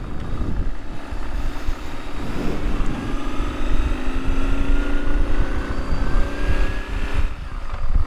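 Motorcycle engine running while riding, with wind rush over the helmet microphone; its pitch rises gently in the middle as the bike picks up speed.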